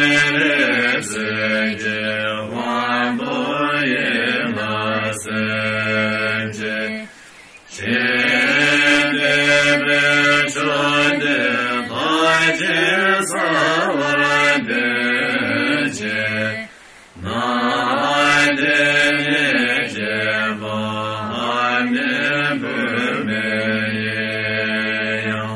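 Buddhist mantra chanting: a low voice chanting in long, unbroken phrases that stop briefly twice, about seven and seventeen seconds in.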